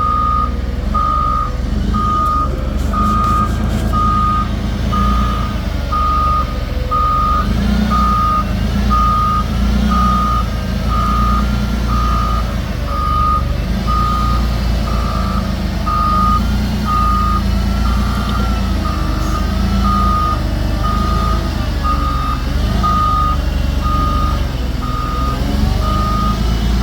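A vehicle's reversing alarm beeping steadily at one pitch, about once a second, over the low running of a heavy truck engine.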